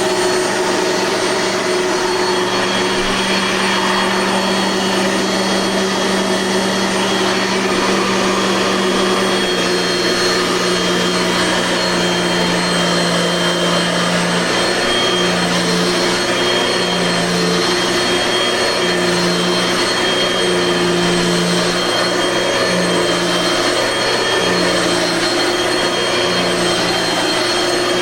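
Dirt Devil vacuum cleaner running steadily at full power, with a high motor whine. From about ten seconds in, a low hum wavers on and off.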